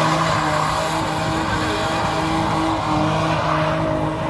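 BMW car drifting in circles: its engine is held on the throttle with a slightly wavering pitch, over the steady hiss and squeal of rear tyres spinning and sliding on asphalt.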